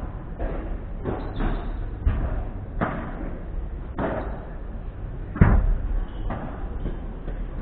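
Padel rally: the ball is struck with padel rackets and bounces, about ten sharp hits under a second or so apart, with the heaviest thud about five and a half seconds in.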